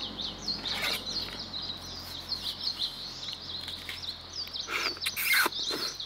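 A small songbird singing a fast, continuous series of short high chirps over a steady outdoor hiss, with a few crisp crunches of bitten watermelon near the end.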